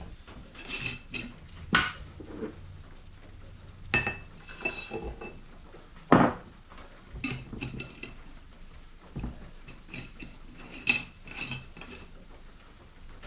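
Crockery and glass being handled and set down on a wooden table, a series of clinks and knocks with short ringing. The pieces are a small ceramic bowl, a mug and the glass jar and lid of a coffee grinder. The loudest knock comes about six seconds in.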